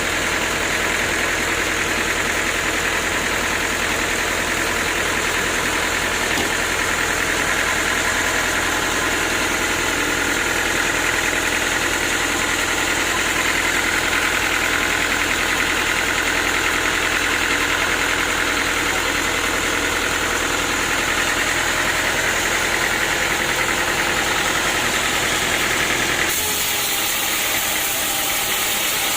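Sawmill engine running steadily under a high hiss. About three seconds before the end the engine's low sound cuts off abruptly, leaving the hiss.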